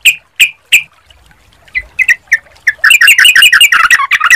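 Songbirds, bar-winged prinia (ciblek) and yellow-vented bulbul (trucukan), calling: a run of loud, sharp repeated notes about three a second, then after a short pause single notes that break into a fast, dense chattering song.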